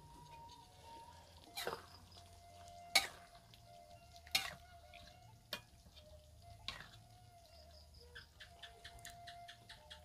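Quiet eating sounds: a few separate light clinks of a spoon against a metal wok, then a quick run of small clicks near the end.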